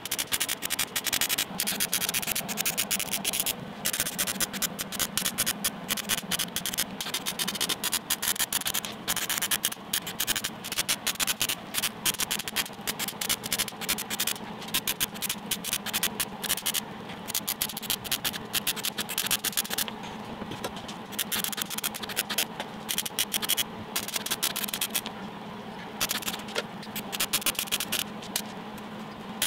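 MIG welder crackling as it lays beads on the joints of 3-inch steel exhaust tubing, a fast, steady sizzle of clicks with brief breaks between welds about two-thirds of the way through and again near the end.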